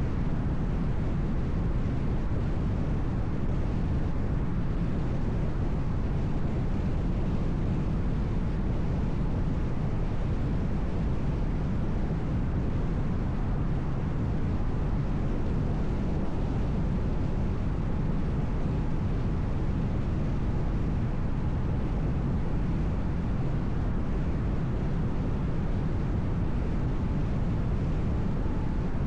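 Car driving at speed on a highway: a steady low rumble of tyre and road noise that holds an even level.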